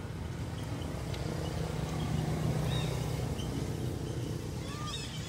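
Steady low hum of an engine running, with a few short, high chirping calls near the end.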